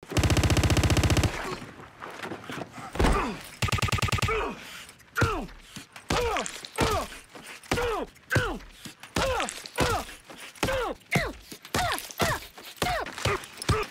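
Looped, edited punch sounds: a run of hits, each with a groan-like tone falling in pitch, repeating about every 0.7 s and speeding up toward the end. They follow a loud, steady buzzing tone in the first second or so.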